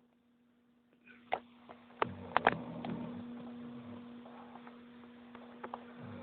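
A man snoring: one long, low snore begins about two seconds in and fades away, preceded by a few sharp clicks, over a steady electrical hum.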